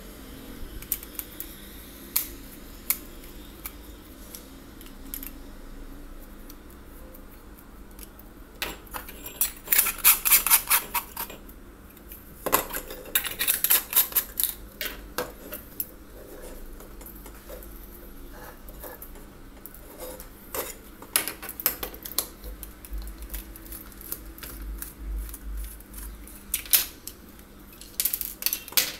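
Plastic bulb-holder parts and small hand tools being handled on a tabletop: scattered clicks and light clatter, with denser bursts of clicking about ten seconds in, again around fourteen seconds, and near the end.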